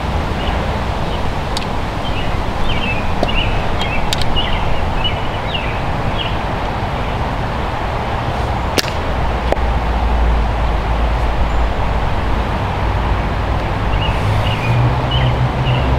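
A fire piston's plunger driven down once about nine seconds in, a single sharp snap, over a steady outdoor background with small birds chirping near the start and near the end. A low rumble of wind on the microphone grows from the snap onward.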